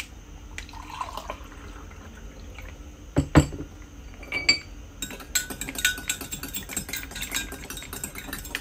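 Water poured from a plastic jug onto powdered drink mix in a glass mug, with a loud knock about three seconds in. Then a metal spoon stirs the drink, clinking rapidly against the glass from about five seconds on.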